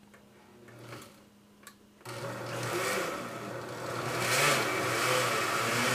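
Countertop blender motor starts about two seconds in and runs steadily, blending a liquid mixture of evaporated milk and cream cheese.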